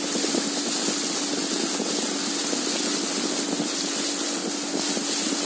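Motorboat engine running at a steady speed, a constant even hum, over a steady hiss of water and wind.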